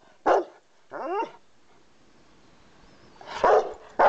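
Rottweiler barking angrily: a short bark, then a drawn-out whining yelp about a second in, and two more barks near the end.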